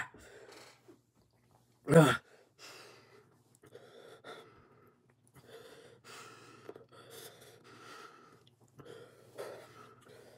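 Heavy, uneven mouth-breathing from a person whose mouth is burning from a freshly eaten ghost pepper, with one short loud cry about two seconds in.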